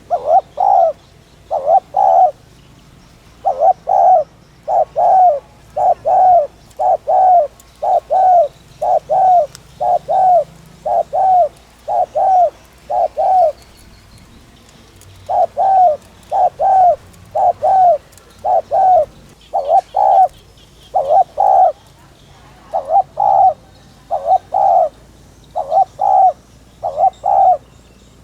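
Spotted dove cooing: loud, low coo notes, mostly in pairs, repeated in long fast runs in the urgent 'thúc' style that bird-keepers play to stir decoy doves. The runs break off for a moment about halfway through and again shortly after.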